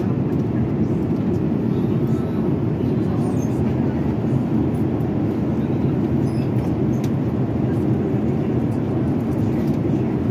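Jet airliner cabin noise in flight: a steady, unbroken low rumble of engine and airflow noise.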